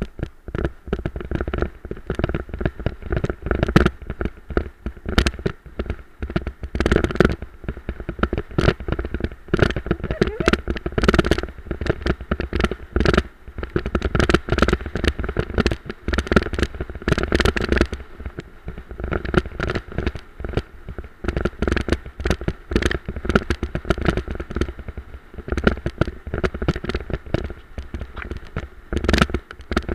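A dog-drawn cart and its handlebar-mounted camera rattling and knocking without pause as the cart runs fast over a rough dirt trail, over a heavy low rumble.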